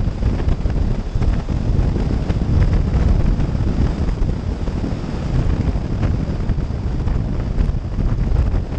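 Wind buffeting the microphone on a moving Triumph Thruxton 900 motorcycle, over the sound of its parallel-twin engine running at road speed.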